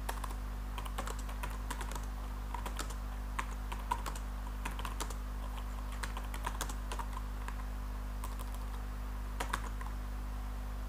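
Typing on a computer keyboard: irregular key clicks, busy for the first seven seconds or so, then a pause and a few more near the end. A steady low hum runs underneath.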